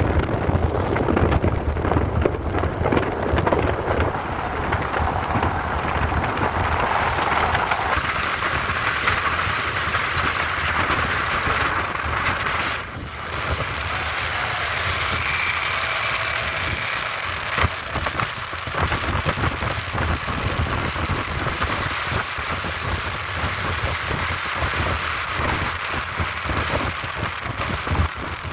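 Wind rushing over the microphone of a phone held on a moving motorcycle, with the engine's low rumble underneath.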